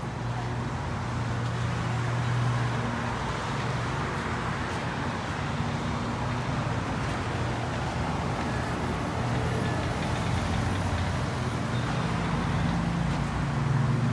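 Steady outdoor traffic noise, with a low engine hum that comes and goes.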